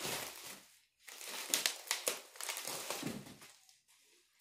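Clear plastic bubble wrap crinkling and rustling as it is pulled and handled around a packed item, in irregular bursts with a brief pause about a second in.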